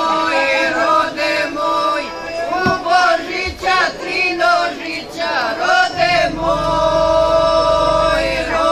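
A group of older women singing a traditional folk song together in unaccompanied close voices, holding long steady notes between shorter gliding phrases.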